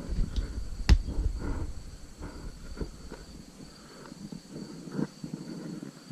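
Hands handling an iPhone on a magnetic dash mount: a sharp knock about a second in, then scattered small taps and rustles. A faint steady high whine sits underneath.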